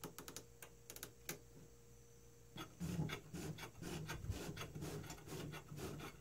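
A few light metal clicks from a locking hemostat, then, from about two and a half seconds in, a rough rubbing as the 3D printer's X-axis extruder carriage is slid by hand along its steel rods on its new GT2 timing belt.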